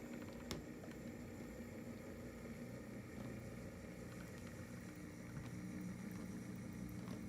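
HO scale CSX GP40-2 model locomotive running on the layout, a steady low hum, with one sharp click about half a second in.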